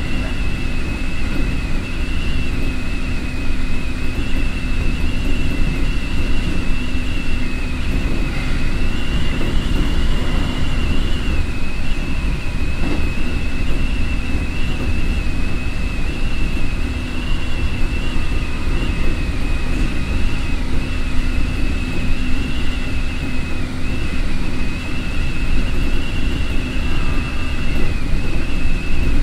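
Keikyu 1500 series electric commuter car, a VVVF retrofit with a Toyo IGBT inverter, running along the line, heard from inside the passenger car. A steady low rumble of wheels on rail, with a steady high whine that wavers slightly in pitch.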